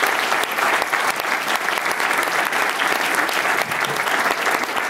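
Audience applauding: a dense, steady sound of many hands clapping at once.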